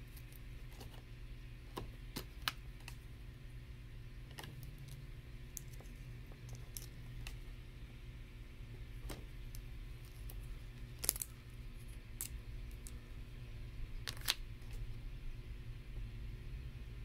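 Lego bricks being handled and pressed together: scattered small plastic clicks, with two louder snaps about eleven and fourteen seconds in, over a low steady hum.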